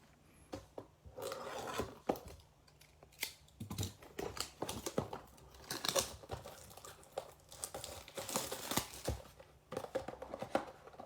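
A cardboard trading-card blaster box being torn open, its plastic wrap crinkling, in irregular rustles, tears and small clicks.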